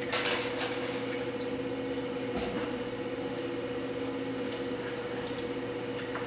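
Motor of a potter's wheel humming steadily as it spins, with soft wet rubbing of hands on the clay vase at the start and again about two and a half seconds in.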